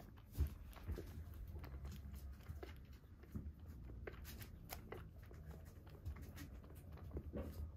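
Kitten suckling milk from a bottle nipple: faint, irregular small clicks and smacks, roughly one a second, over a low steady hum.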